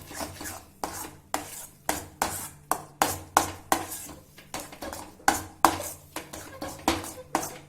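A spoon stirring and mashing a thick bread-and-milk halwa paste in a kadai, scraping and knocking against the pan in quick, uneven strokes, about two or three a second.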